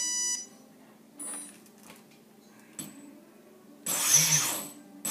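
Electronic speed controller arming beeps as the battery is connected: a pitched beep at the start and a shorter one about a second in. About four seconds in, a small brushless motor spins up and back down twice as the throttle is blipped, its whirr rising and falling in pitch; this is the loudest sound.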